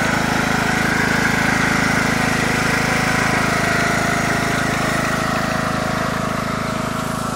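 Riding lawn mower's engine running steadily under way, with a steady high whine over the drone; it grows a little quieter toward the end as the mower drives off.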